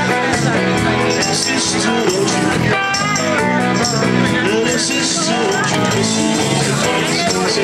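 Live rock and roll band playing an instrumental break with no singing: electric guitars over bass and drums, at a steady beat.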